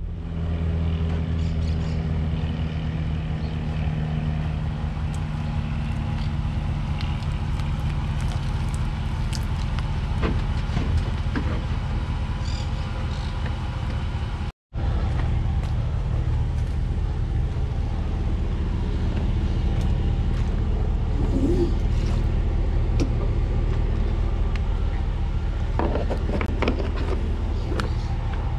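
Steady low rumble of a running motor vehicle with a faint hum over it. It cuts out completely for an instant about halfway through, then carries on the same.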